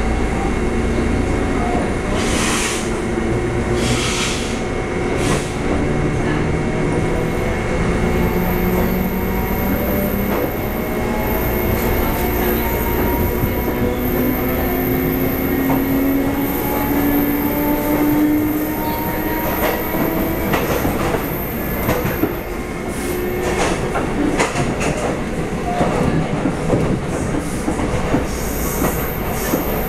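Taiwan Railway EMU400 electric train heard from inside the carriage while running and gathering speed. A motor whine rises slowly in pitch over the rumble of the wheels, with occasional clicks as the wheels cross rail joints.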